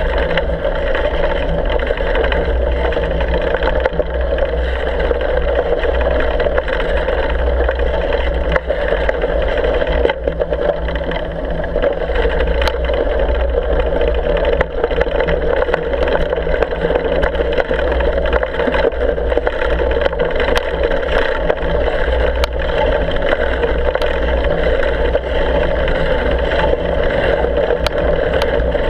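Steady rushing and rumbling noise of a bicycle riding over a packed-snow road, heard through a handlebar-mounted action camera: tyre rumble and wind on the microphone, with scattered small clicks and rattles.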